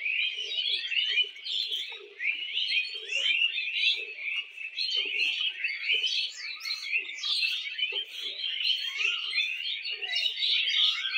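A chorus of small birds chirping and twittering continuously, many quick overlapping notes.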